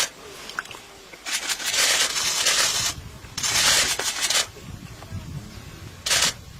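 Three bursts of rubbing, rustling noise: a long one about a second in, a shorter one soon after, and a brief one near the end.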